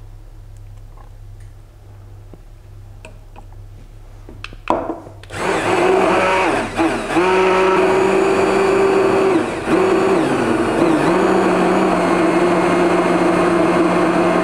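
Hand-held immersion blender switched on about five seconds in, its motor then running steadily while blending tomato cream soup in a saucepan, the pitch dipping briefly a couple of times. Before it starts there are only a few small clicks.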